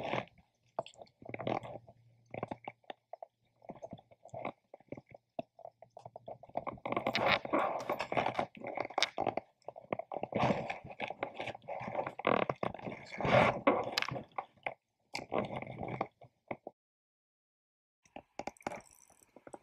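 Irregular close-up rustling, scraping and clicking of hands handling fishing tackle right at the camera's microphone, as a Rooster Tail spinner is tied on and cast on an ultralight spinning rod and reel. The noise comes in bunches, busiest through the middle, with a short quiet gap near the end.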